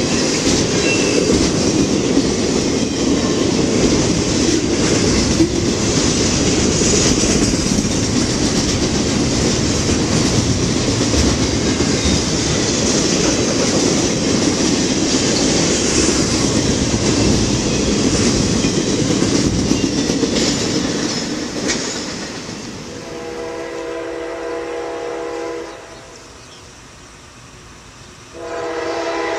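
Intermodal freight train cars rolling past on the rails, a loud, steady rolling noise that fades after about 20 seconds as the end of the train goes by. Then a multi-tone locomotive air horn sounds two long blasts, the second near the end.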